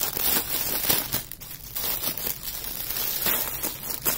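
Clear plastic packaging crinkling and crackling as hands pull it open, in an irregular run of sharp crackles.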